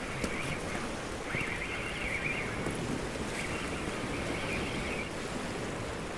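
Fixed-spool reel being wound in three spells as a hooked fish is played in, over a steady rush of wind on the microphone and surf.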